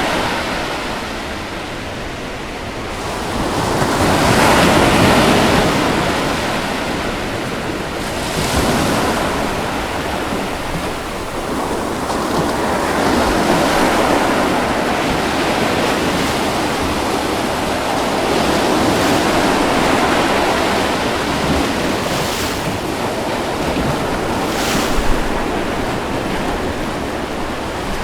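Ocean waves breaking on a beach, the surf rising and falling in slow swells every few seconds, with a brief sharp splash about 25 seconds in.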